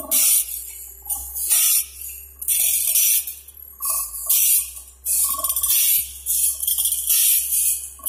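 Automatic band saw blade sharpening machines grinding the saw teeth: the abrasive wheel hits each tooth in turn, giving a rhythmic hiss of grinding a little more than once a second, some strokes with a short ring, over a steady motor hum.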